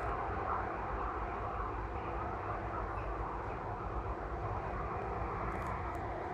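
Steady distant engine drone, even and unbroken, with a faint steady hum running through it.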